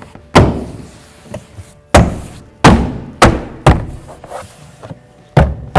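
Interior door panel of a Toyota Tundra being hit to snap its plastic retaining clips into the door: six loud thumps at uneven intervals, each one seating a clip.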